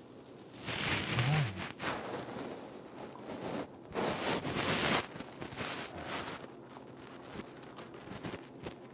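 Rustling and handling noise with scattered clicks, coming in three bursts of about a second each: one about a second in, one around four to five seconds in, and a shorter one near six seconds.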